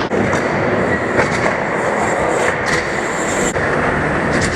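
Wheels rolling over skatepark concrete and ramps: a steady rumbling roll with a few sharp clicks and knocks.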